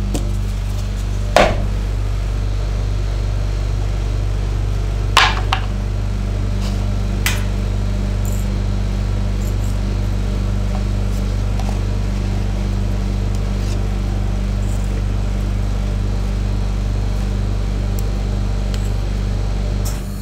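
Steady low hum of a rolled-ice-cream cold plate's refrigeration unit running. Over it come a few sharp clicks of a steel spatula striking the metal plate and paper cup while lifting the rolls: one about a second and a half in, a pair about five seconds in, and a lighter one a couple of seconds later.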